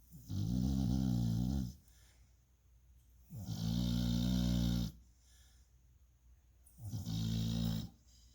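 A dog snoring in its sleep: three long, pitched snores about three seconds apart, each lasting a second or more, with quiet between them.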